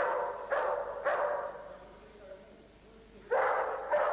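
A dog barking: three sharp barks in quick succession, a pause of about two seconds, then two more barks near the end.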